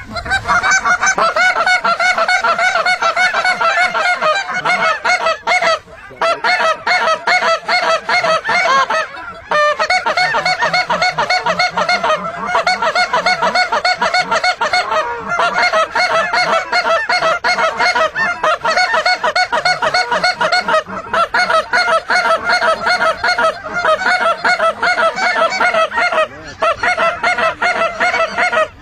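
A flock of geese honking without pause, many calls overlapping, with a few brief breaks.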